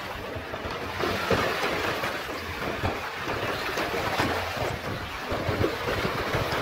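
Shallow surf washing at a sea beach, with wind buffeting the microphone in uneven gusts.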